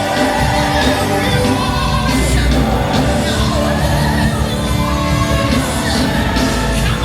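Live gospel worship music, with a band playing and singers singing.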